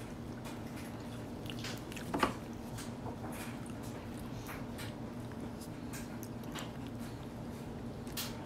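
Baby eating with her fingers in her mouth: small wet mouth clicks and smacks, with one louder sound about two seconds in, over a steady low hum.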